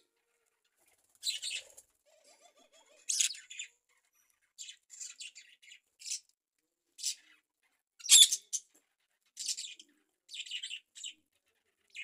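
Budgerigars chirping in short, high, scattered calls about once a second, the loudest one about eight seconds in.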